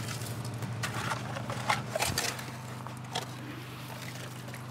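Shovels digging into soil and gravel in a trench, with several short scrapes and crunches as the blades bite in, over a steady low engine hum.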